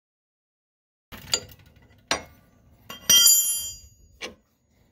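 A steel wrench clinking against the lower shock-mount bolt and bracket: a couple of sharp knocks after about a second of silence, a loud ringing metallic clink about three seconds in, and another knock near the end.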